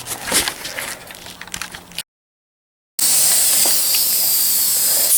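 A few clicks and knocks of handling, then a moment of dead silence, then from about three seconds in the loud, steady hiss of a spray gun blowing primer.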